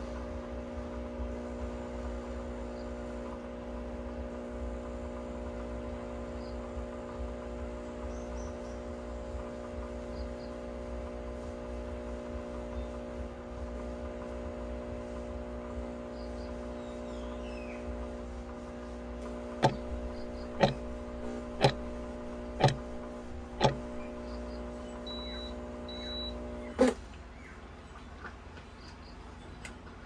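Breville espresso machine running its cleaning cycle with a steady hum. From about two-thirds of the way in it gives five sharp clicks about a second apart, then two short high beeps. The hum then cuts off with a click near the end, the sign that the cleaning cycle is finished.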